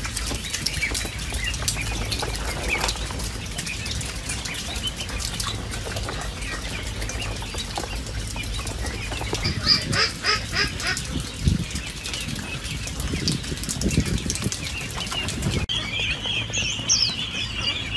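Young poultry scuffling and flapping their wings, a busy patter of rustles and small clicks over a steady low hum. About two seconds before the end a chorus of high peeping comes in.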